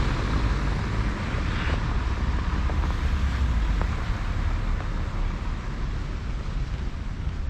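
Street traffic going past, a steady noise with a low rumble that slowly eases toward the end.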